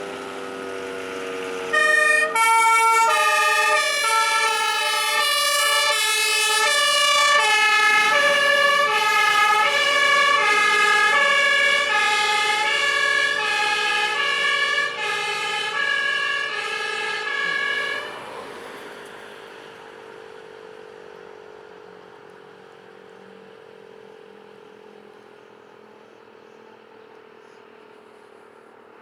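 A fire engine's German two-tone siren (Martinshorn) sounds its alternating high and low notes from about two seconds in until it cuts off about two-thirds of the way through. Beneath it a civil-defence alarm siren winds down in a slowly falling wail that grows fainter toward the end.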